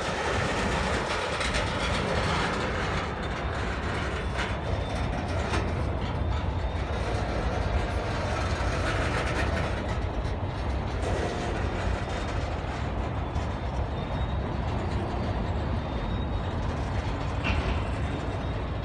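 CSX manifest freight train's boxcars and tank cars rolling slowly past: a steady rumble of steel wheels on the rails, with a few faint knocks.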